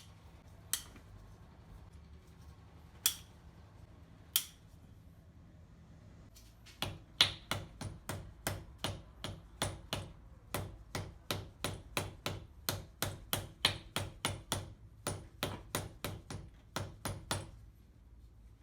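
Hammer blows: a few single strikes, then a steady run of about three strikes a second for some ten seconds, each with a short ring.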